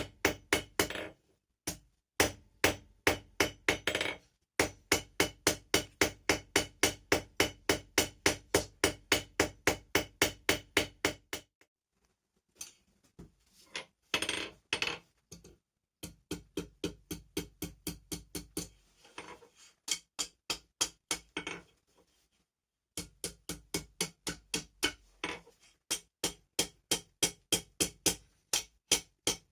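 Blacksmith's hammer striking steel on an anvil while forging an S hook, in quick runs of about four blows a second, each blow ringing briefly. The runs break off for short pauses twice.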